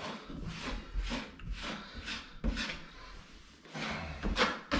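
Metal drywall taping knife scraping wet joint compound across the paper face of a butterfly patch on a drywall wall, in a series of short wiping strokes with a brief pause a little past the middle.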